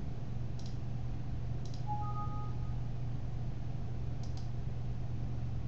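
A few faint, widely spaced computer mouse clicks over a steady low hum, with a faint brief two-note tone about two seconds in.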